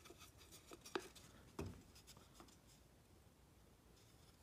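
Near silence, with a few faint knocks in the first two seconds as a steel square and wooden blocks are set in place on a bench.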